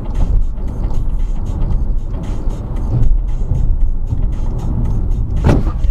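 Car driving, heard from its own cabin through a dashcam: a steady low rumble of engine and road noise, with one sharp knock about five and a half seconds in.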